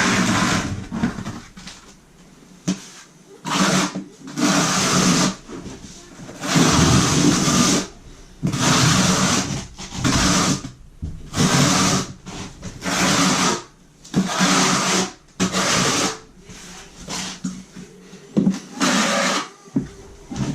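Notched trowel scraping thinset mortar across a plywood subfloor in a dozen or so back-and-forth strokes, each about a second long, with short pauses between. This is the thinset being pressed into the wood and combed out for an uncoupling membrane.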